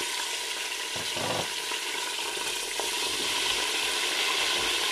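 Lamb pieces sizzling steadily in hot oil with whole spices in an aluminium pressure cooker, fried in the oil before anything else is added.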